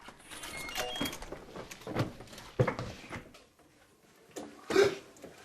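Scattered knocks and thumps indoors, the loudest about two seconds in, again half a second later, and near the end.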